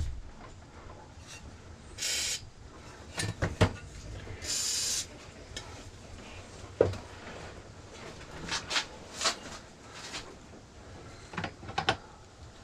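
Two short sprays from an aerosol can of WD-40, hissing about two and four and a half seconds in, between scattered clicks and knocks of tools and metal parts being handled.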